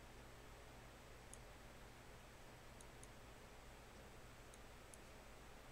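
Near silence: faint steady hiss and hum, with a few faint, short clicks from a computer mouse clicking the program's buttons.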